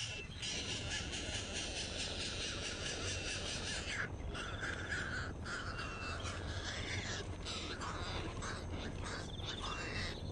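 Harsh, repeated bird calls starting about four seconds in, among short high chirps, over a steady background hiss.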